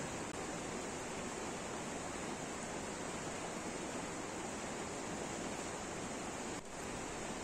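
Steady, even rushing noise with no distinct events, dipping briefly near the end.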